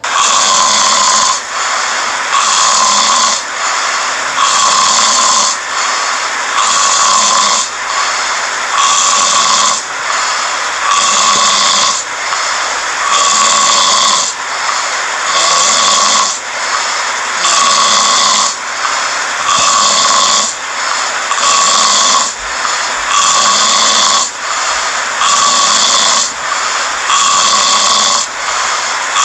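Loud snoring in a steady rhythm, about one snore every two seconds, setting in suddenly out of quiet.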